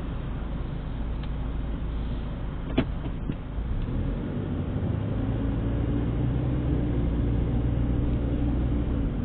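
Car driving noise heard from inside the cabin: a steady low engine hum and road rumble. A single sharp click comes about three seconds in, and from about four seconds the engine note comes up and rises slightly.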